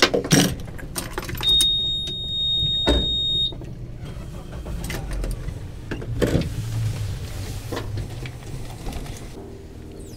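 Knocks and bumps on a fishing boat, loudest at the start, with more about three and six seconds in. A steady high electronic beep sounds for about two seconds, over a low steady hum.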